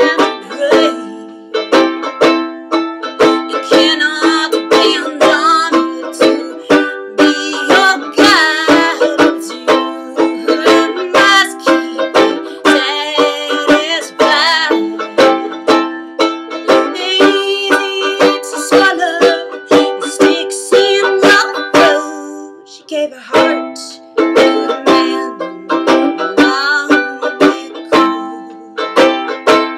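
A woman singing to a strummed Gold Tone banjolele. Her sung lines come and go over steady strumming, which drops away briefly about three-quarters of the way through.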